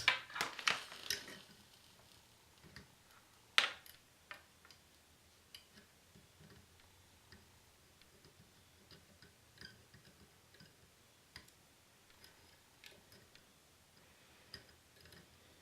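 Sharp clicks and knocks of handling at the soldering setup in the first second and a half, one more loud click about three and a half seconds in, then faint scattered ticks while the soldering gun heats a brass bullet connector.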